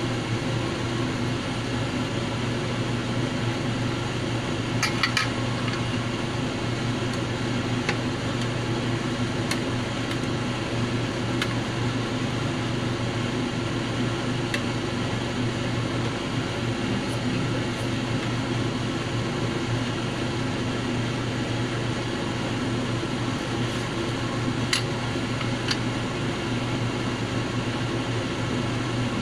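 A steady mechanical hum, with a few light clicks of a spoon against a non-stick saucepan while the simmering oden is stirred.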